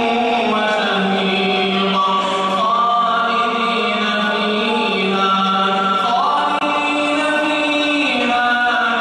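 A man's solo voice reciting the Quran aloud in slow, melodic chanted recitation while leading prayer, holding long notes that step up and down in pitch.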